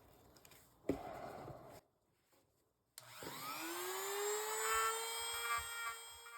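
Electric rotary tool switched on about three seconds in, its whine rising in pitch as the motor spins up to speed and then holding steady. A short rustling noise about a second in comes before a moment of dead silence.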